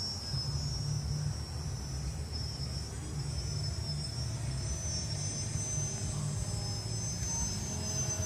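E-flite T-34 Mentor RC plane's electric motor and propeller running in flight, heard from the ground, with a low steady rumble under it.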